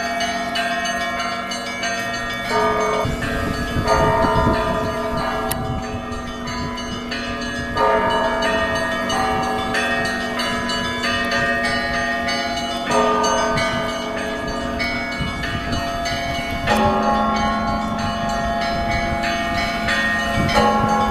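Russian Orthodox church bells ringing for Easter: several bells of different pitch sounding together in a continuous peal, with a fresh heavy stroke every few seconds renewing the ringing.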